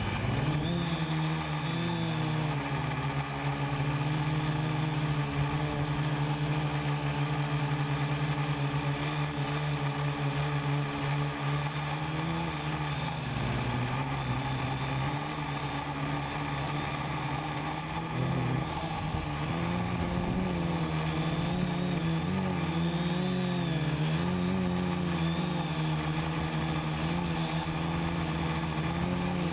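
Quadcopter's electric motors and propellers heard from its onboard camera: a steady buzzing hum that rises in pitch as it lifts off from the grass at the start. It dips briefly partway through, then wavers up and down in pitch as the motor speeds change in flight.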